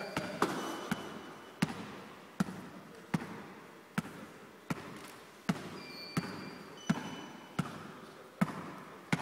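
Basketball being dribbled steadily, about a dozen bounces at a little over one a second, each a sharp slap that fades out quickly.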